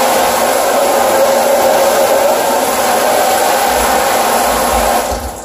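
Handheld shower head spraying water onto a padded chair in a shower stall, a loud, steady rush of water that fades out about five seconds in.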